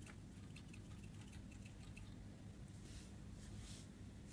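Faint small ticks and pattering as tiny star-shaped glitter confetti is sprinkled onto clear slime, then a short rustle about three seconds in as a plastic concealer tube is handled, over a low steady hum.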